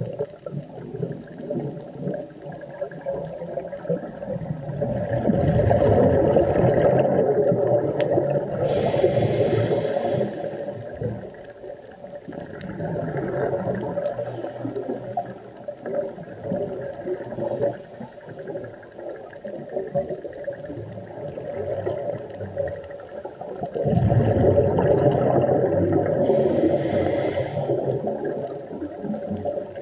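Scuba regulator breathing heard underwater: bursts of exhaled bubbles rumbling and gurgling past the camera, with a hiss during the bursts. The bubbling swells twice, about five seconds in and again near the end, with quieter bubbling between.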